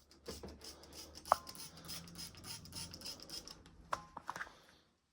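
Trigger spray bottle of diluted cleaner squirting repeatedly in a run of short hissy strokes, with handling rattle and a sharp ringing clink about a second in and a few more clicks near the end.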